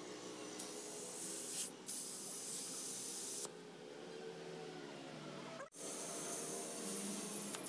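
Compressed air from a tyre-shop air compressor hose hissing into the valve of an inflatable Intex beanless bag chair, in three bursts with short breaks between them.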